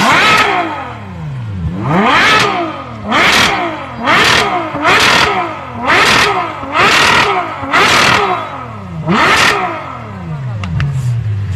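Ferrari 812 Superfast's V12 engine revved repeatedly while standing still: about nine quick throttle blips, each rising and falling in pitch, roughly a second apart, then settling back to idle near the end.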